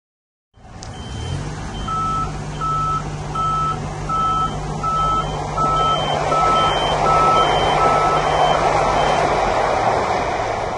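Mitsubishi-built Doha Metro 'Al Faras' train passing, its running noise swelling to a peak and easing near the end over a steady low hum. Over it, a repeated short electronic warning beep, about three every two seconds, that stops near the end.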